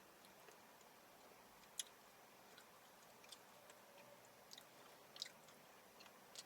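Faint mouth sounds of someone eating soft-serve ice cream: scattered short clicks and smacks, the sharpest about two seconds in and another about five seconds in.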